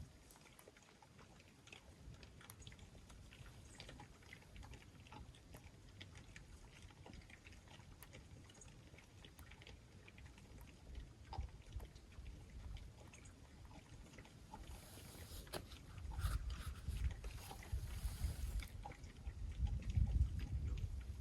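Feral hogs feeding on spilt corn: scattered crunching and small clicks, with low grunting and rumbling that grows louder in the last few seconds.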